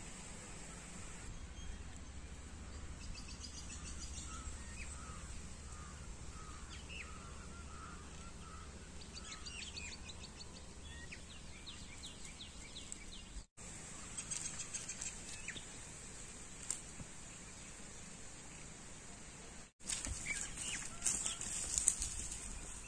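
Outdoor ambience of small birds chirping in short repeated calls over a steady high hiss, with the sound cutting out briefly twice. Near the end there is rustling and crunching of footsteps through dry grass.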